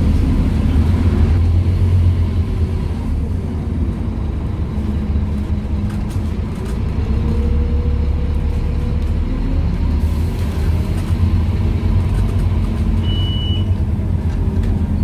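Scania N230UD OmniCity single-decker bus heard from inside the saloon, its Scania DC9 engine with ZF 5HP500 automatic gearbox running under way with a deep, steady rumble. A faint whine rises in pitch about seven seconds in, and a short high beep sounds near the end.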